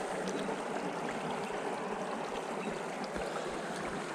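Small creek flowing over rocks, a steady rush and trickle of running water.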